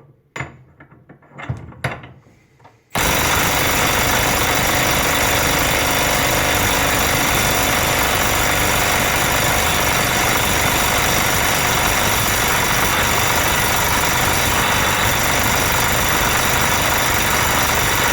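Milwaukee M12 Stubby 12V cordless impact wrench hammering continuously at full power. It starts abruptly about three seconds in, after a few handling knocks, and runs on steadily: the tool is being run hot in an over-temperature test and has not cut out.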